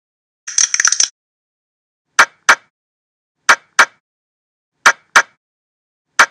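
A short rattling burst about half a second in, then sharp ticks in pairs, tick-tock, repeating about every second and a third like a ticking clock.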